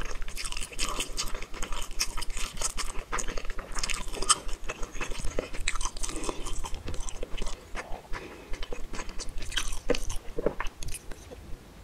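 Close-miked chewing of a mouthful of spicy tteokbokki: a dense, irregular run of small wet clicks and smacks.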